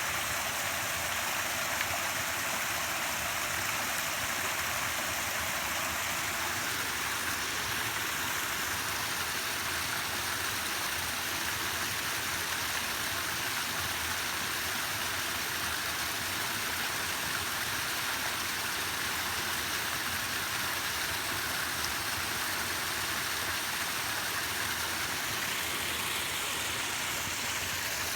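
Steady rush of falling water, an even hiss strongest in the upper-middle range with no breaks.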